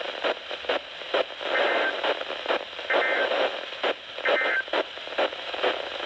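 Weather radio's speaker playing three short bursts of warbling two-tone EAS/SAME data, about a second and a half apart, over crackling radio static: the end-of-message code that closes a NOAA Weather Radio tornado warning.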